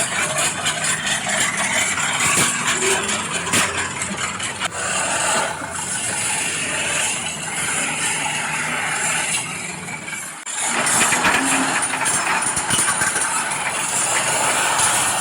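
Radio-controlled scale construction machines running: a steady, dense mechanical engine-like noise. It drops out sharply and briefly about ten seconds in, then carries on.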